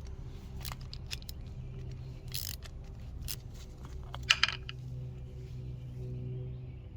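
Scattered metallic clicks and clinks of a screwdriver working on a small lawn-mower carburetor to open its float bowl, with the loudest sharp clink about four seconds in, over a steady low hum.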